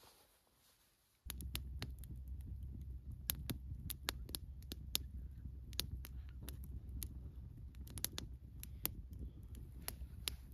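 Wood campfire burning, starting abruptly about a second in: sharp, irregular crackles and pops of the burning wood over a steady low rumble.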